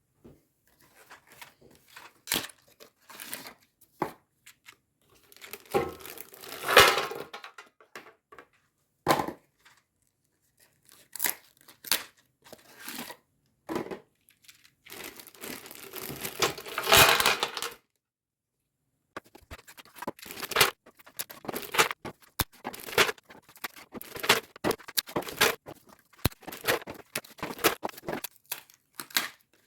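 Cardboard boxes of 9mm range ammunition being torn open by hand, with two longer, louder tearing sounds. About two-thirds of the way in, a run of quick rattling clicks follows as the boxes and rounds are handled.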